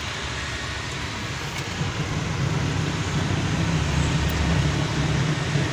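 Diesel truck driving, heard from inside its cab: a steady engine rumble with road noise. The low rumble grows louder about two seconds in.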